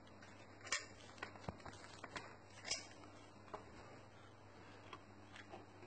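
Faint, scattered soft taps and rustles, the sound of a hand grabbing into and handling a cake topped with grated cheese.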